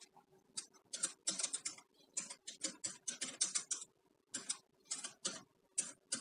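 Typing on a computer keyboard: a quiet, irregular run of key clicks, about four a second, with a short pause midway.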